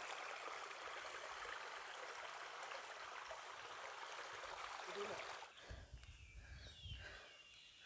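Faint, steady rush of flowing stream water. It cuts off abruptly about five and a half seconds in, leaving a quieter outdoor background with a low rumble.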